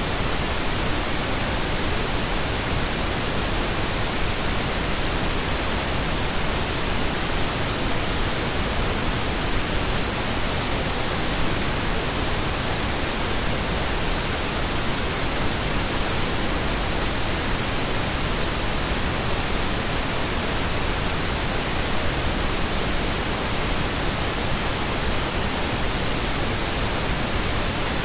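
Steady synthetic pink noise: an even hiss spread across all pitches, with no change in level.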